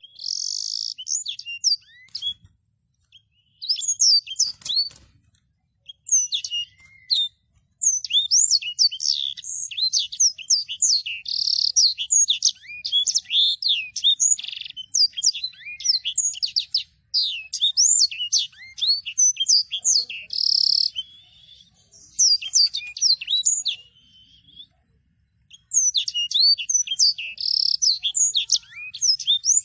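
Sanger songbird singing a fast, rolling song of rapid high chirps and trills, breaking off briefly a few seconds in and again about three quarters of the way through before rolling on.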